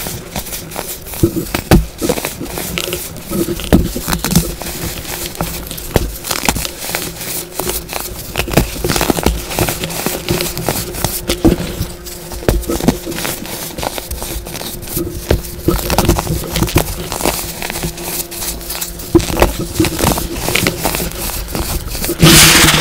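Packed baking soda blocks being squeezed and crumbled by hand: a dense, uneven run of soft crunches and crackles as the chalky powder breaks apart. A louder, rushing crunch comes near the end.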